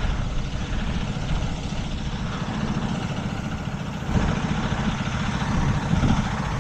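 Heavy tow truck's diesel engine running at low revs while reversing slowly, a little louder about four seconds in.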